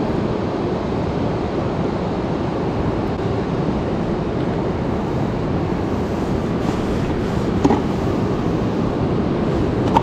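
Steady rush of surf breaking on a sandy beach, with a couple of faint clicks near the end.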